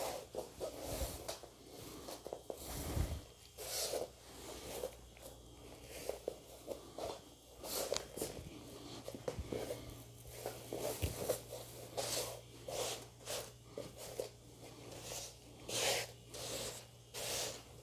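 Embroidered net fabric and taffeta rustling as hands smooth and shift the net over the skirt: a run of irregular soft swishes and rubs.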